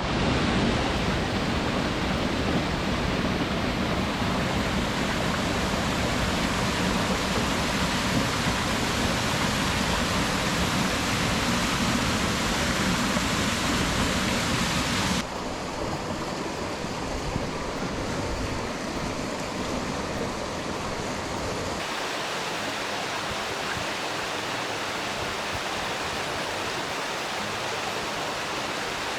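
Steady rush of water from a waterfall and mountain stream. The sound changes abruptly about halfway through and again later, becoming a little quieter and duller, as between separate recordings.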